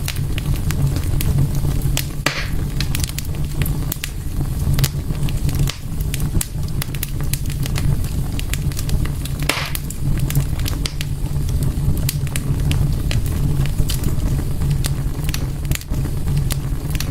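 Fireplace fire crackling: many sharp pops and snaps over a steady low rumble, with a brief hiss about two seconds in and again about halfway through.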